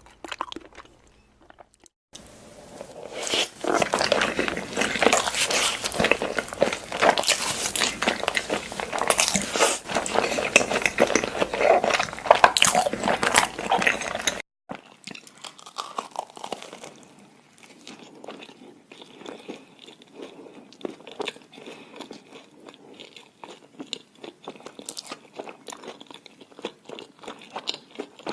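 Close-miked eating: crunchy food being bitten and chewed, with dense, loud crunching. About halfway through it cuts abruptly to quieter, sparser chewing.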